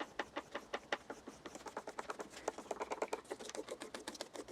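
Hook knife blade being stroked rapidly back and forth on a leather strop loaded with honing compound, about five or six short scraping strokes a second: the stropping that polishes the freshly sharpened edge.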